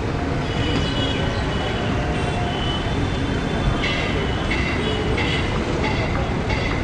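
Steady low rumble of a twin-engine widebody jet airliner's engines at takeoff power as it climbs away. From about four seconds in, a short high-pitched sound repeats roughly every two-thirds of a second.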